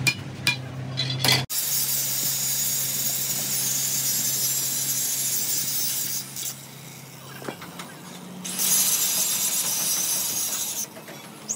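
A few sledgehammer blows on a steel leaf spring on an anvil, then an angle grinder with a cutting disc grinding into the steel bushing sleeve of the leaf-spring eye, in a long run, a short pause and a second run that stops near the end.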